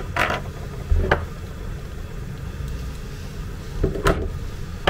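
Small clicks and a knock from handling a plastic toy leg and a metal pin. About four seconds in comes a sharp snip as cutting pliers cut through the wire pin. A steady low hum runs underneath.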